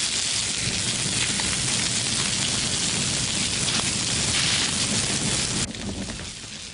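Fire hose reel jet spraying water onto a fire, a steady loud hiss of spray and steam. It drops away sharply near the end.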